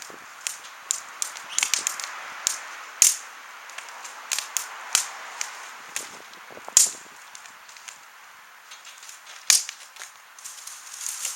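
Wood fire of branches crackling: irregular sharp pops and snaps over a soft steady hiss, a few of them louder than the rest.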